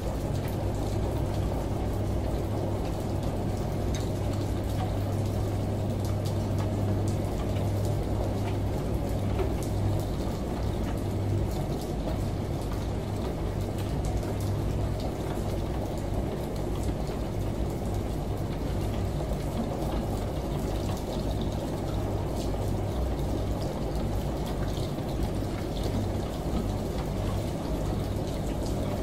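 Steady ambient blend of running shower water and rain over the low, constant hum of a washing machine, with faint scattered drip ticks.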